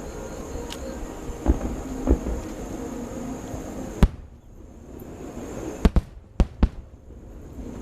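Aerial fireworks bursting over a steady background hiss. Two duller booms come in the first couple of seconds, then a single sharp loud bang, then four sharp cracks in quick succession.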